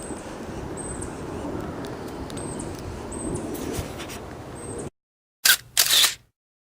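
Outdoor background noise of low rustling with faint, short high-pitched chirps every second or two, which cuts off abruptly to silence. Two brief loud bursts of noise follow about half a second apart.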